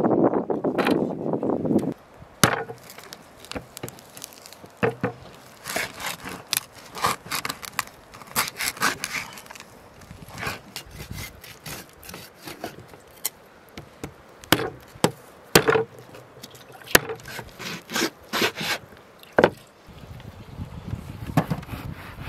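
Large kitchen knife cutting bone-in raw veal on a wooden cutting board: irregular sharp knocks and taps of the blade striking the board. A steady noise stops about two seconds in, just before the knocks begin.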